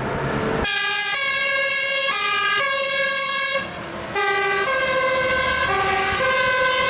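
Fire engine siren sounding in a hi-lo pattern, its tone stepping between pitches about every half second, with a short break about halfway through. It follows a brief hiss at the start.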